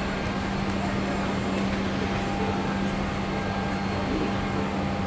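Steady hum and hiss of a Boeing 777-300ER's cabin air-conditioning, with a constant low tone underneath.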